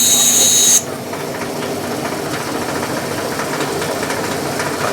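Bandsaw cutting through a workpiece with a loud hiss and high whine, which drops away abruptly about a second in as the blade comes out of the cut. The saw then keeps running free with a steadier, quieter hum.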